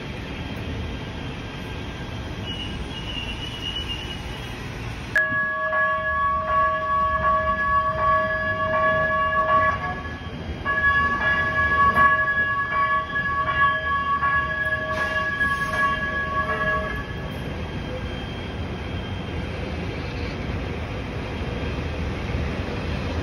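LA Metro A Line light rail train (a Kinkisharyo P3010 car) sounding its pitched warning signal as it crosses the street, with a regular pulse. The signal starts about five seconds in, breaks off briefly near ten seconds, and runs on until about seventeen seconds. Before and after it, the low rumble of the train and street traffic.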